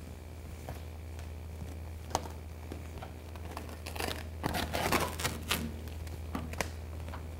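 A sheet of clear vinyl rustling and crinkling as hands press and pull it flat against a bare car door shell. There are a few light clicks, and a louder run of crinkling about four seconds in that lasts over a second, over a steady low hum.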